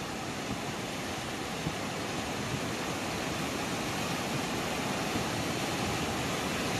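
Fast-flowing floodwater rushing in a steady, even hiss that grows slowly louder.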